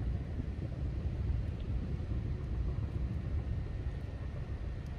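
Steady low rumble of wind and sea, with no distinct events.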